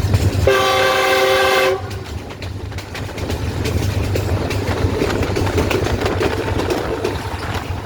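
Diesel-electric locomotive (GEU-20, a GE U20C) sounding its horn in one steady blast of about a second, then the train running on with low rumble and the clickety-clack of wheels over rail joints.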